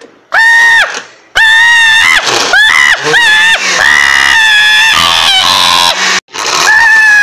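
A high-pitched voice screaming in several long cries with short breaks between them.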